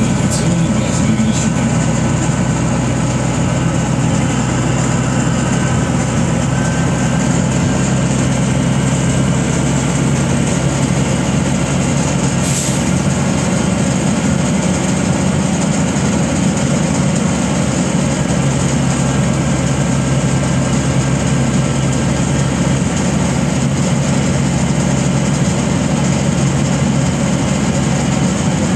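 MAZ-105 city bus heard from inside the passenger cabin while driving: a steady diesel engine drone under tyre noise from the wet road. A short hiss comes about twelve seconds in.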